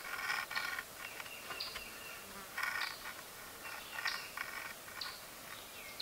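Insects calling in short buzzy bursts, roughly one a second, with faint short high chirps over them.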